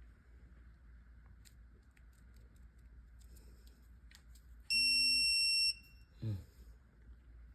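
Digital torque angle wrench giving one steady electronic beep about a second long, with a few faint clicks before it.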